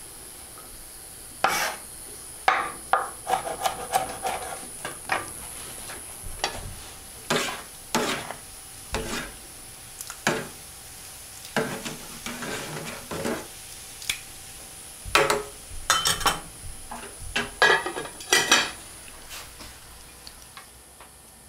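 Kitchen utensils clinking and scraping against pots and dishes at irregular intervals, some strikes ringing briefly, with a quick flurry of clinks near the end, over a steady high hiss.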